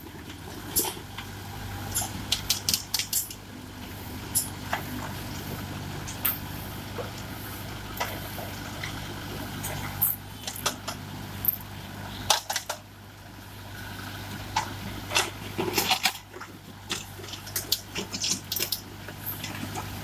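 Diesel engine of a Mahindra tractor-mounted backhoe loader running steadily while the steel backhoe bucket digs into broken concrete and brick rubble, with frequent irregular sharp clacks and knocks of stone against the bucket.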